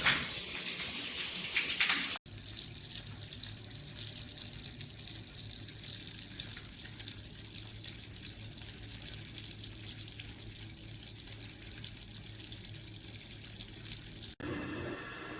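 Tap water running into a sink. It is louder for the first two seconds, then cuts abruptly to a quieter, steady run of water over a low hum.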